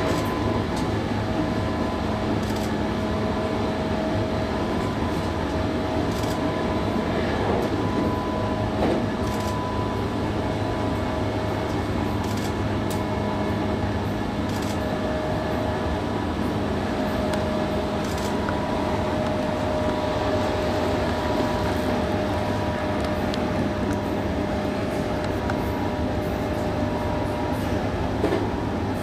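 JR West 221 series electric train running at speed, heard from inside: a continuous rumble of wheels on rail under a steady whine, with scattered faint clicks.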